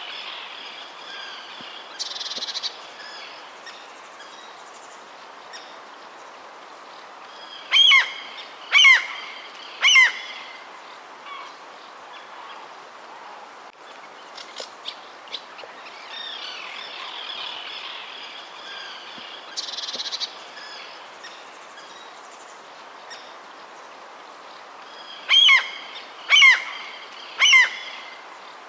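Wild birds chirping and singing in a continuous background, with a louder bird giving three loud calls about a second apart, twice; the same stretch of birdsong repeats, as in a looped recording.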